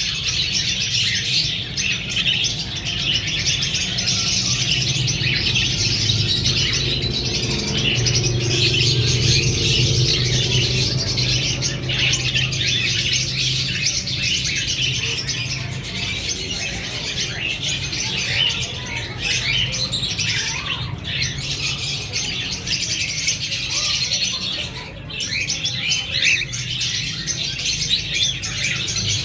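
Cockatiels chirping continuously, many overlapping calls with no break, over a steady low hum.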